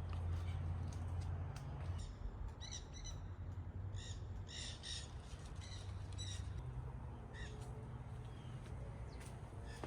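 A bird calling: a run of short, repeated calls starting about two seconds in and ending near the last third, over a steady low hum.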